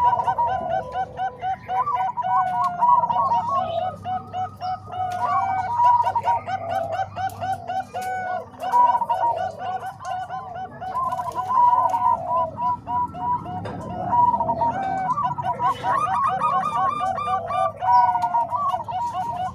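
Zebra doves (Bangkok perkutut) cooing without pause, runs of quick repeated coo notes from more than one bird overlapping.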